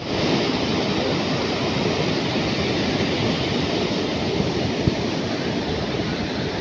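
Surf breaking on a beach, a steady wash of waves, with wind buffeting the microphone in low gusts.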